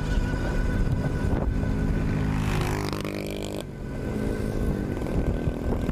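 Wind rushing over the microphone and tyre noise of a 48 V mid-drive electric bike ridden at about 47–49 km/h, with a steady high motor whine. A pitched engine-like tone swells a little past halfway and cuts off abruptly.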